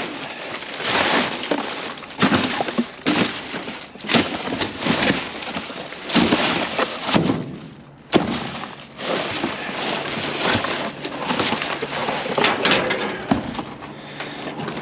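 Rummaging through junk in a dumpster: irregular clattering, knocking and rustling as debris is shifted and pulled about by hand.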